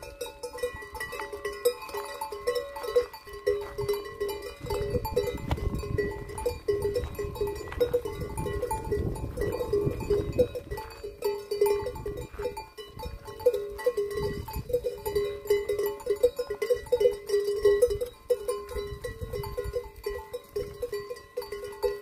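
Bells on a herd of goats clanking and tinkling irregularly at several pitches as the goats walk.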